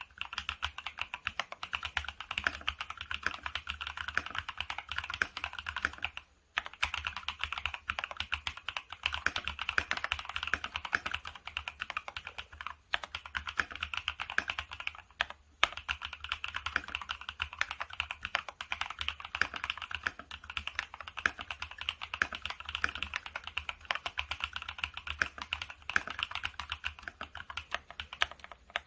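Steady, fast typing on a FEKER IK75 gasket-mount mechanical keyboard with Akko CS Silver linear switches and doubleshot PBT OSA-profile keycaps. The key strokes run densely, with short pauses three times.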